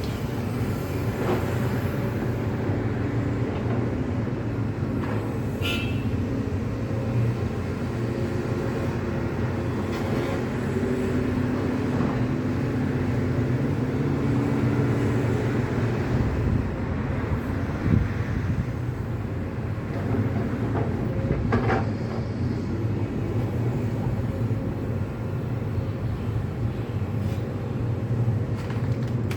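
Diesel engine of a heavy tracked demolition excavator running steadily under load, with a few separate knocks from debris being worked.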